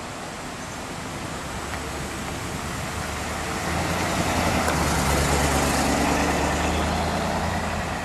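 A 1960 Ford Thunderbird with its 352 cubic-inch V8 driving past: the engine grows louder as the car approaches, is loudest about four to six seconds in as it passes close by, then fades as it moves away.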